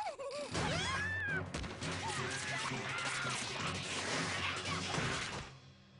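Cartoon destruction mayhem: a dense, continuous run of smashing and crashing with yelling voices and music. It stops abruptly about five and a half seconds in.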